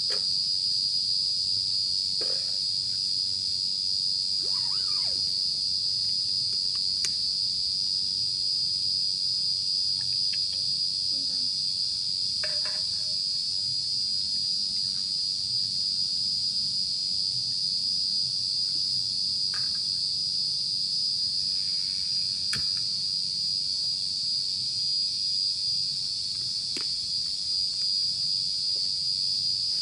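Night insect chorus: a steady, unbroken high-pitched trill. A few faint clicks are scattered through it.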